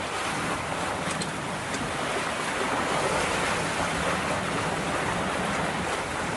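Steady rush of wind and sea water aboard a sailing yacht under way, with a few faint clicks about a second in.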